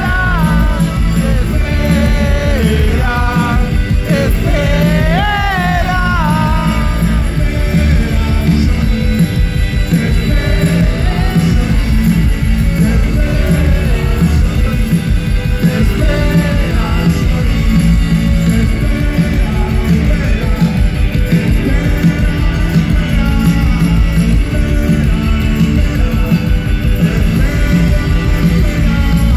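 Live rock band playing loud through a PA, heard from within the crowd: electric guitars, bass and drums at a steady beat, with a sung vocal line over the first several seconds and then instrumental playing.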